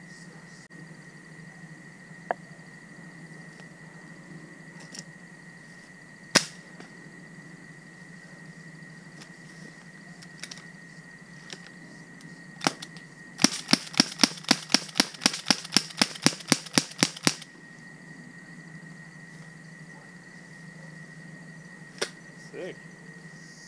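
Rifle shots: a single sharp shot about six seconds in, then a rapid string of shots at about four a second for some four seconds, and one more shot near the end.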